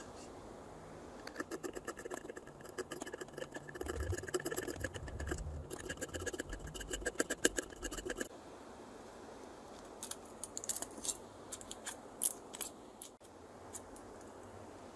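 A craft knife blade scrapes at an LED on the circuit board of an LED bulb in rapid, repeated strokes, stopping about eight seconds in. A few scattered light clicks follow near the end.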